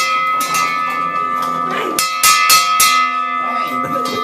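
A bell rung repeatedly in quick clangs: a cluster of strokes at the start and another about two seconds in, with a steady ringing tone held between them. It is rung to celebrate a successful home-sale closing.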